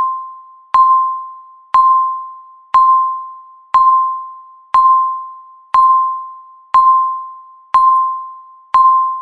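Countdown timer beep: one electronic chime-like tone each second, each starting sharply and fading away before the next, nine in all at an even pitch.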